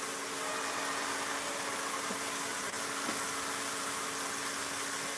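A kitchen fan running steadily: an even whooshing hiss with a low hum.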